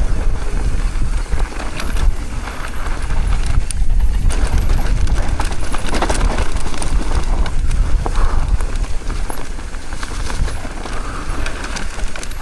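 Mountain bike descending a rough, loose dirt trail: the tyres crunch over dirt and rocks while the chain and frame rattle with many sharp clicks and knocks. A heavy low rumble of wind buffets the microphone.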